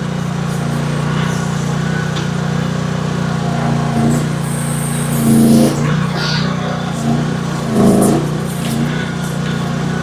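Chinese AGT H12 mini excavator's 13-horsepower engine running steadily under hydraulic load. It swells louder twice, about five and a half and eight seconds in, as the machine works.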